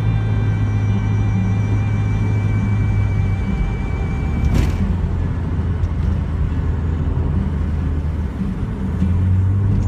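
Car driving, with a steady low engine drone over tyre and road noise. The engine note drops about a third of the way in and rises again near the end. A single click comes about halfway.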